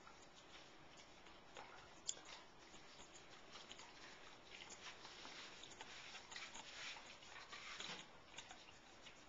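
A dog gnawing at a meaty bone held in a person's hand: faint, irregular clicks and scrapes of teeth on bone, with one sharper click about two seconds in.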